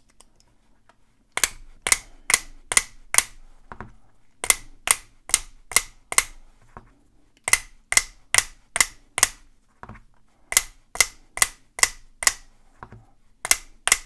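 A strong magnet wrapped in gaffer's tape stroked back and forth across the body of a TappLock One+ fingerprint padlock, each stroke a sharp click. The clicks come in runs of about five, roughly three a second, with a pause of about a second between runs. The magnet's polarity is switched every few strokes to turn the rotor of the lock's motor and open it.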